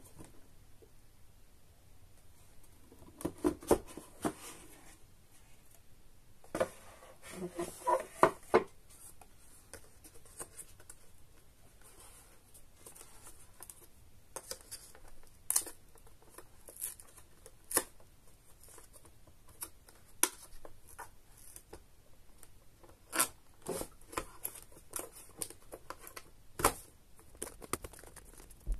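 Hands handling a cardboard gift box and its card insert: rustles and scrapes as the lid comes off, then scattered short taps and clicks on the packaging.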